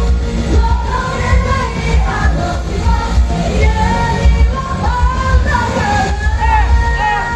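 Live pop-rock song: a vocalist singing over a full band with heavy bass and drums, with a long held note near the end.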